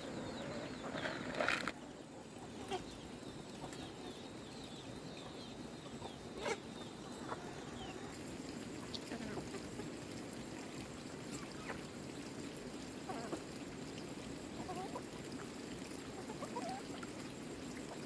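A flock of chickens with chicks pecking at corn kernels scattered on the ground: scattered light pecks and a few short clucks and peeps over a steady background hiss.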